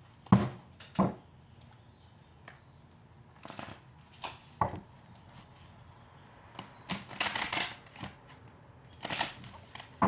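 A deck of tarot cards being handled and shuffled by hand: irregular short slaps and flicks of cards, with a longer rustle of shuffling about seven seconds in and another shorter one near the end.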